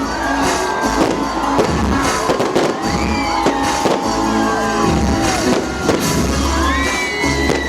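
Fireworks display: repeated bangs and crackle of shells bursting, over loud music with a heavy bass.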